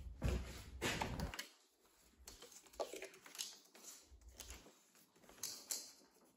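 Faint clicks and rustles of hands handling a newly mounted plastic universal armrest and the car seat it is bolted to, with a low rumble in the first second and a half.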